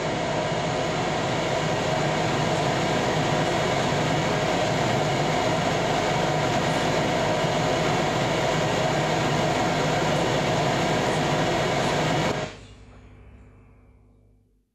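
Steady, dense rumbling noise from the live stage sound design, with a train-like character. It cuts off abruptly about twelve seconds in, leaving a faint hum that fades out.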